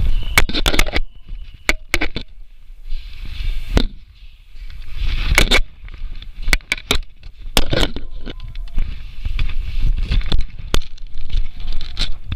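Irregular sharp clicks and crackling scrapes, some in quick clusters of two or three, over a low rumble of wind and handling on the microphone.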